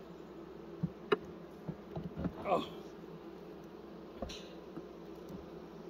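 Steady hum of honeybees buzzing around an open hive, with a few sharp knocks and clicks as the hive's frames are handled.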